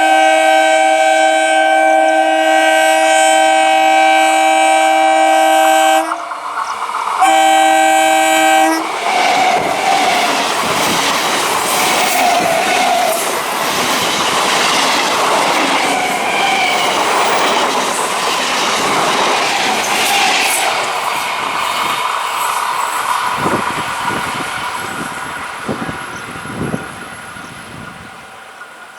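Indian Railways EMU local train sounding its horn in one long steady blast of about six seconds, then a second shorter blast. The train then runs past with wheels rattling over the rail joints, and the noise fades away near the end.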